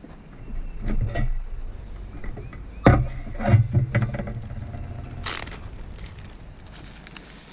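A few sharp knocks and clatters, the loudest about three seconds in, followed by a short hissing rush about five seconds in, over a low rumble of wind on the microphone.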